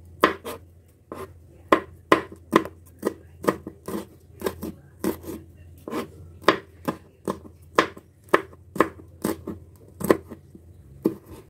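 Kitchen knife slicing red chillies on a cutting board: a steady run of sharp knocks of the blade against the board, about three a second.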